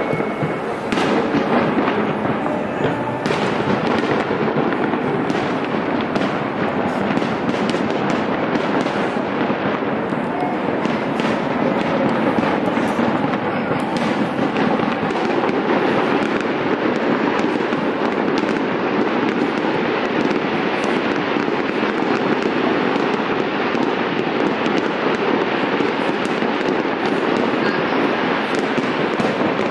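Aerial fireworks display: a dense, continuous barrage of shell bursts, with many overlapping bangs and sharp pops and no pause between them.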